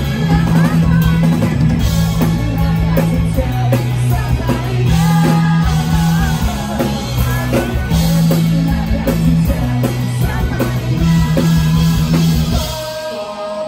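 A rock band playing live: electric bass, drum kit and guitar, with singing. The bass and low end drop out briefly near the end.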